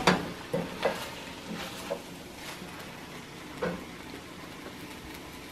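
Brussels sprouts and mushrooms sizzling softly in a stainless steel pot, with a few light knocks of a wooden spoon against the pot, mostly in the first two seconds and once more about three and a half seconds in.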